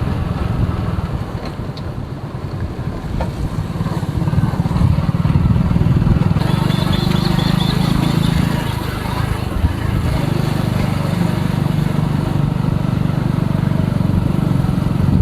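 A road vehicle's engine running steadily while under way, a low hum that eases off about two seconds in, picks up again, and briefly changes pitch near the middle.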